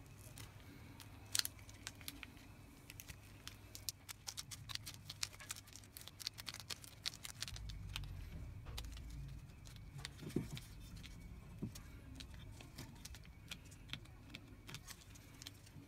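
Nitrile-gloved hands kneading a stick of epoxy metal filler putty and pressing it onto a small metal bracket: faint crinkling of the gloves and many quick small clicks of handling, over a steady low hum.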